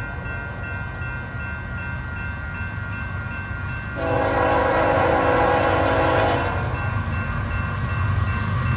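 An approaching diesel train's locomotive horn sounds one long blast about four seconds in, lasting a little over two seconds, over the locomotive's low rumble. A railroad crossing bell rings in a steady repeating pattern throughout.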